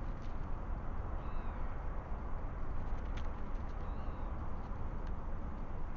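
Steady low outdoor rumble and hiss, with three faint, short, high bird chirps spread across it.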